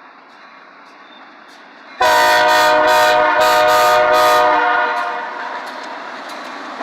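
Diesel locomotive air horn, a GE B23-7's, sounding one loud steady blast of about three seconds, starting about two seconds in. It is followed by the rising rumble of the approaching train.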